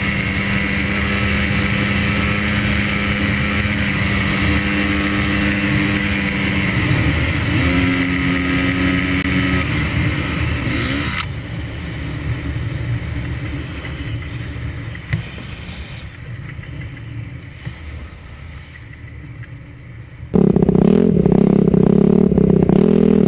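Dirt bike engine heard from the rider's helmet camera, running at a steady pitch and then climbing to a higher note about seven seconds in. After a sudden cut comes a quieter stretch of rushing noise with a few knocks, and near the end a loud engine note starts abruptly and wavers.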